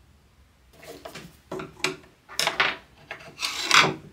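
Small wooden block rubbing and scraping against plywood and a square metal sleeve as it is handled, in a run of short strokes starting about a second in, the loudest near the end.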